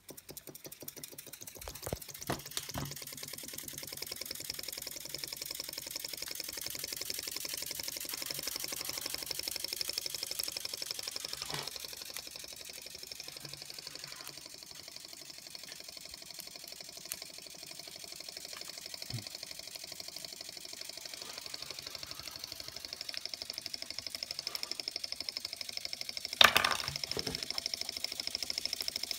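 Antique Radiguet No. 2 toy steam engine running, its small engine and flywheel making a fast, steady clatter of ticks over a faint hiss. A few light clicks come early on, and one sharp knock near the end is the loudest sound.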